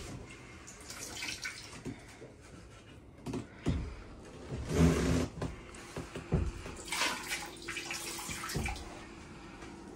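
Seawater splashing and sloshing in a sailboat's bilge in irregular bursts as it is poured in from a bucket to test the bilge pump. A faint steady hum comes in about halfway through.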